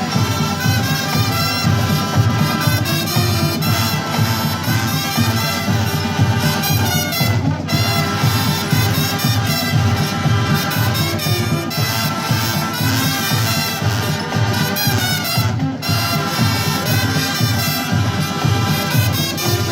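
Marching brass band playing: trumpets and trombones over a steady low drum beat, with two brief breaks in the music.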